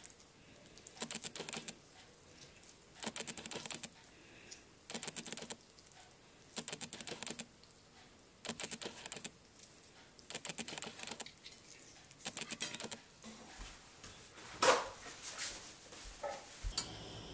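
Fingers pressing wet masala paste into raw shell-on prawns, giving short bursts of sticky crackling and clicking about every two seconds. One sharper knock comes near the end.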